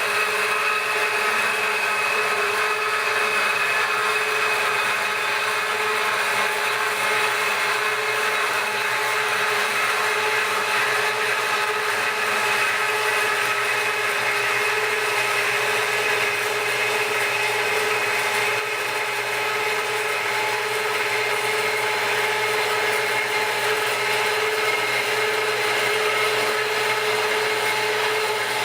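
Metal-cutting band saw running steadily, its blade cutting through 6-inch steel pipe, with a constant whine over a grinding hiss.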